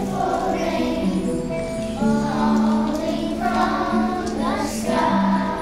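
A choir of young children singing a song with musical accompaniment, the notes held and sustained.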